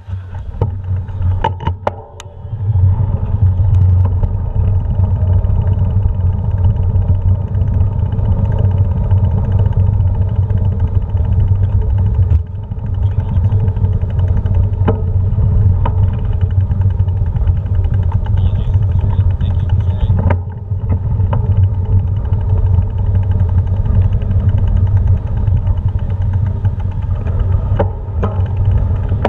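Bicycle rolling over paving stones: a steady low rumble with rattles and the odd click, dipping briefly twice along the way.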